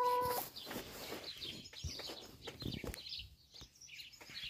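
Hens vocalizing: a drawn-out hen call ends in the first half-second, then soft chirps and scattered light taps and rustles from the hens pecking and scratching through greens and dry leaves.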